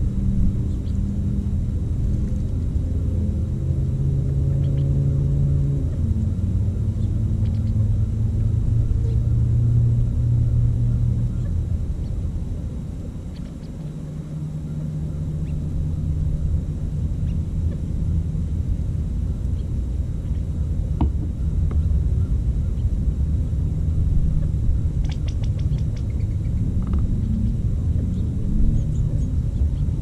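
Low, steady engine rumble from a distant motor, with a droning hum that dips briefly about halfway through and then settles into a steady low tone.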